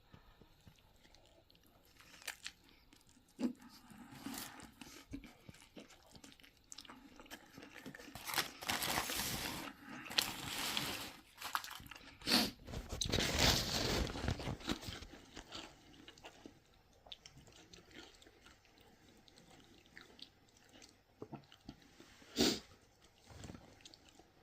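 A person biting into and chewing a chicken wrap with a breaded fried chicken tender, lettuce and pickles in a flour tortilla, with crunching, loudest around the middle, and a sharp click near the end.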